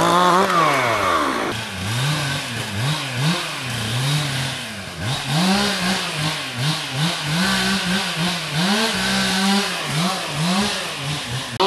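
A small two-stroke engine, most likely a chainsaw, is revved over and over, its pitch rising and falling about once a second. There is a sudden change in the sound about one and a half seconds in.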